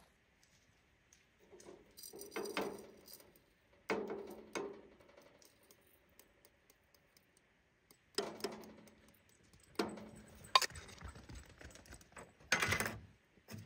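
Stainless hand coffee grinder handled over an enamel camp percolator as the grounds are emptied into its basket: several separate light metal taps and clinks, a few seconds apart.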